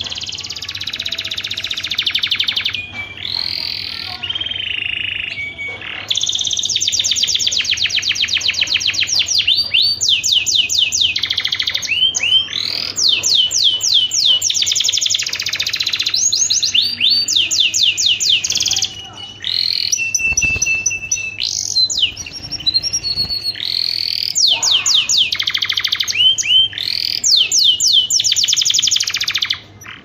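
Domestic canary singing a long, continuous song of rapid high trills and repeated notes, switching from one rolled phrase to the next every second or two. The song slackens briefly a little past the middle, then picks up again.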